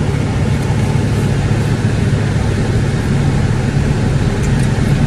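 Steady low hum of a car idling, heard from inside the cabin.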